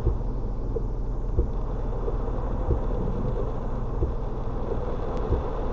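Inside a Mitsubishi Mirage in heavy rain: a steady low hum from the car's engine, with irregular taps of rain hitting the windshield and roof.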